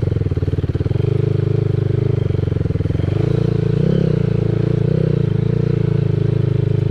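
Dirt bike engine running steadily as it is ridden along a muddy track, with a brief rise and fall in pitch about four seconds in.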